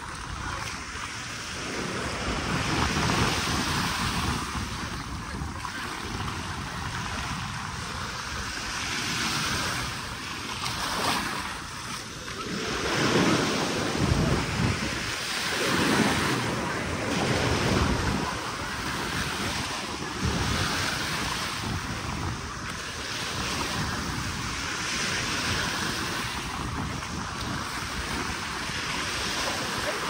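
Small waves breaking and washing up the sand at the shoreline, with wind buffeting the microphone, strongest in gusts around the middle.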